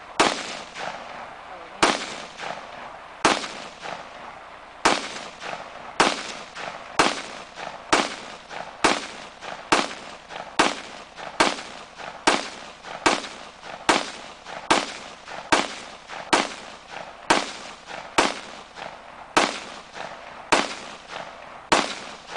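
Sig Sauer 556 rifle (5.56 NATO) fired semi-automatically in a long string of about twenty shots, roughly one a second, each shot followed by a short echo.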